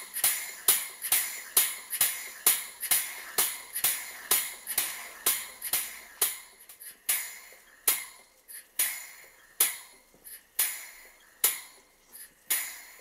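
Model Southworth steam pump (a Weir-type boiler feed pump) running on steam: a sharp clack with a short hiss of steam at each stroke. About two and a half strokes a second at first, slowing to about one a second as the boiler pressure falls with the burner off.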